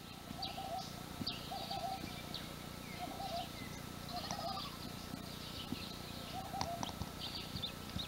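Dawn chorus of birds: short low calls repeated every second or so, over many high chirps and twitters.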